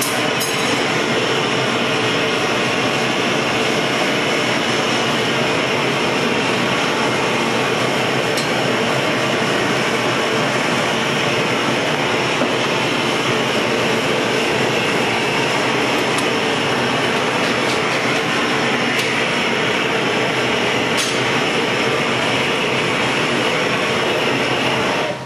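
Glassblowing hand torch running with a steady roar as its flame heats the glass of a large vase.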